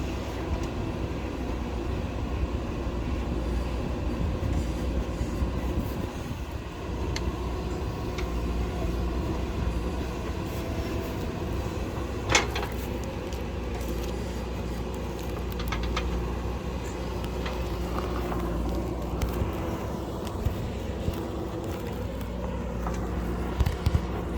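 JCB backhoe loader's diesel engine running steadily while digging, with one sharp clank about halfway through and a few smaller knocks near the end.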